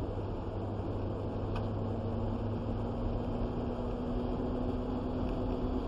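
Steady engine and road noise heard from inside a moving vehicle's cab, with a steady hum coming in about two seconds in and a faint click about one and a half seconds in.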